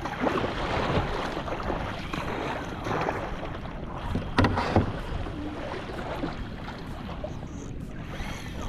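Kayak paddle strokes splashing through choppy sea water, with wind buffeting the microphone. A couple of sharp knocks come about four and a half seconds in.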